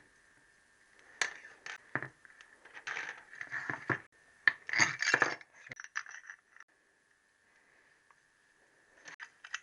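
Clicks, clinks and scrapes of steel on steel as a Triumph T120R piston and connecting rod are worked by hand: a wire gudgeon-pin circlip is picked out of the piston and a tube is set against the piston. The clicks come in a busy cluster through the middle and a few more near the end, over a faint steady high tone.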